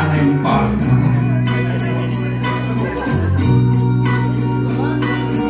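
Accompaniment to a song, with sustained low keyboard or bass chords that change about three seconds in and a steady cymbal tick about four times a second; little or no singing is heard.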